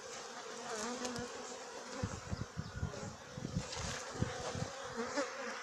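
A colony of honeybees buzzing over an opened hive: a steady hum with wavering pitches as bees fly close by. The bees are stirred up, as they get when the frame holding the queen is lifted. From about two seconds in, a run of low rumbling bumps sounds under the hum.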